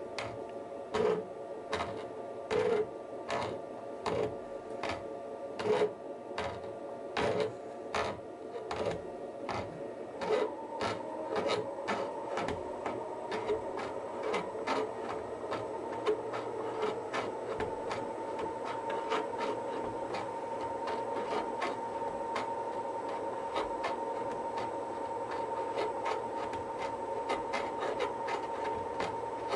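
A steel gear hob on a running milling machine free-hobbing the teeth of a brass-coloured worm wheel, which the hob drives round on its mandrel. The hob's cutting edges click regularly as they bite, about once a second at first, then quicker and fainter from about ten seconds in, while a steady whine comes in and grows.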